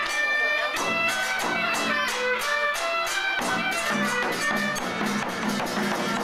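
Music: a single reedy melody line moving from note to note over regular percussion strikes.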